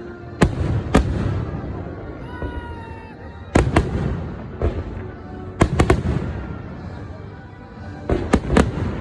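Fireworks exploding in four clusters of sharp bangs, each bang ringing out after it, over music playing in the background.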